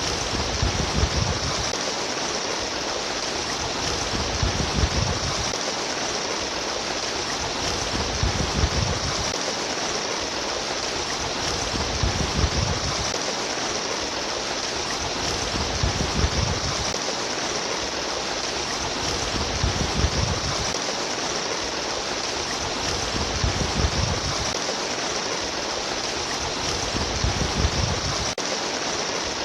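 Babbling, trickling stream water running continuously, with a low rumble that swells about every four seconds.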